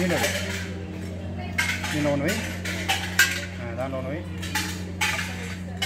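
Rudraksha beads dropped one at a time into brass pots, each landing with a short metallic clink, irregularly spaced, over a steady low hum.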